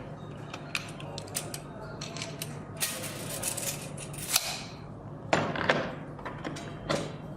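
A tape measure being handled: a run of sharp clicks and several short rasping sweeps, with more clicks near the end.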